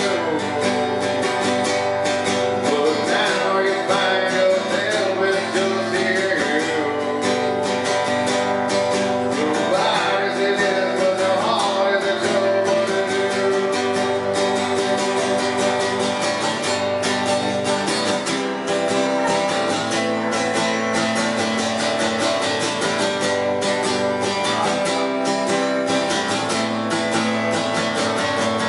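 Solo acoustic guitar strummed steadily in a live performance, with a man singing along in places, mostly in the first half.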